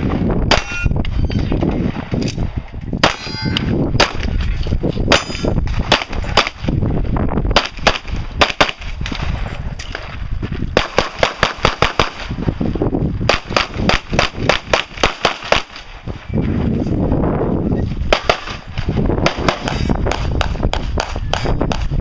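Pistol fired in quick strings of several sharp shots, with short pauses between the strings as the shooter moves through a practical-shooting stage.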